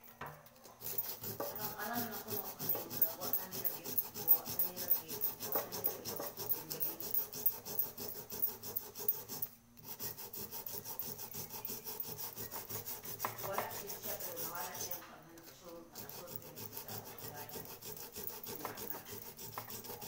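Quick back-and-forth rubbing or filing with a small hand-held abrasive over a patched spot on an upturned small metal pot. It stops briefly about halfway through and goes on more quietly in the last few seconds.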